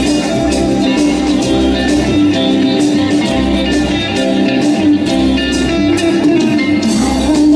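Live band playing an instrumental passage: electric guitar over keyboard, bass and drums, with no vocals.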